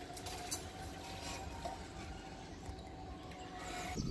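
Level-crossing barrier lowering: a steady whine that stops just before the end, as the boom comes to rest across the road.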